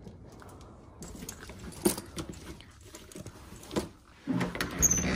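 Dog leashes being handled and hung up: metal leash clips clinking and jangling among rustling nylon webbing, with scattered clicks and a busier cluster of clinks near the end.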